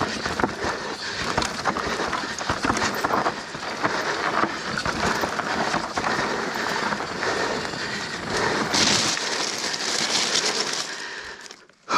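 Mountain bike descending a dirt singletrack, heard from the bike: tyres rolling over dirt and loose rocks with a steady clatter of knocks from the bike. About 9 s in the low rumble drops away and a brighter hiss takes over as the tyres roll onto railway gravel ballast, then the sound fades nearly out just before the end.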